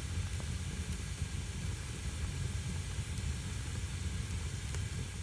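Wood fire burning in a stove: a steady hiss over a low rumble, with a few faint crackles.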